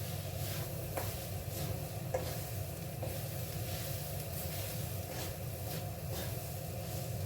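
Spatula stirring and scraping soya beans roasting in a pan with spices, in short strokes about twice a second, over a steady sizzle and a low hum.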